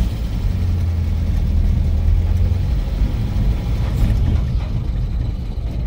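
Nissan 1400 bakkie's 1.4-litre four-cylinder engine, still on its old exhaust, running from inside the cab as the bakkie creeps forward at low speed. It is a steady low rumble that eases a little about three seconds in.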